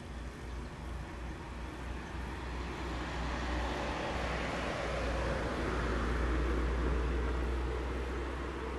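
Rumble of a vehicle passing by, growing louder over several seconds, loudest about six to seven seconds in, then fading.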